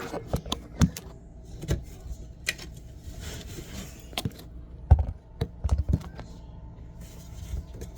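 Scattered light clicks, knocks and rattles of hands handling the dryer's metal parts, with a brief soft hiss about three seconds in and the sharpest knock about five seconds in.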